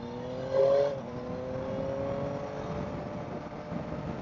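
Yamaha MT-09's three-cylinder engine accelerating hard, its pitch rising steadily, with a brief louder burst just under a second in. Wind noise grows as the speed builds and the engine note fades into it near the end.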